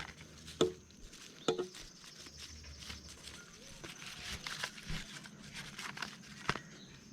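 Camping gear being handled: crinkling, rustling sheet material with a few sharp clicks or knocks, three of them standing out.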